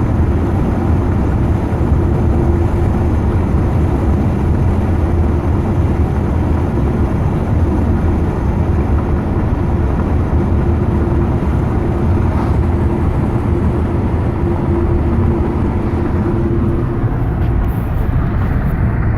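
Inside a 2009 Ford Fusion cruising at about 55 mph: steady road and tyre noise, with a faint steady tone that fades in and out. The owner takes this noise for a failing left rear wheel hub bearing, the squealing he later cures by replacing the hub assembly.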